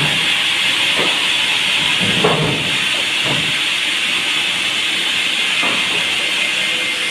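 Sawmill band saw running with a steady, loud hiss, with a few short low knocks scattered through it.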